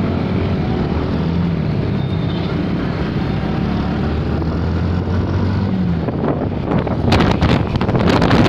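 A motor running with a steady low hum, joined in the last two seconds by a quick run of knocks and clicks.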